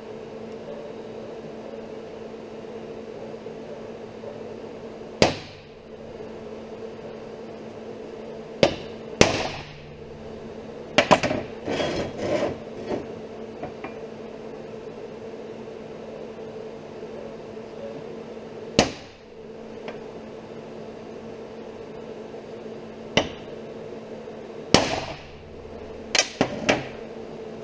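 Hammer blows on a hand-held steel chisel set against steel angle, each a sharp, ringing metallic strike. The strikes come singly a few seconds apart, with a quick run of several in the middle and three close together near the end, over a steady background hum.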